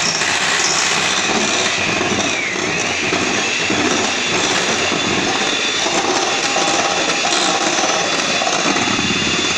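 Electric hand mixer running steadily, its beaters whipping eggs in a stainless steel bowl: the yolks being beaten into stiffly whipped whites.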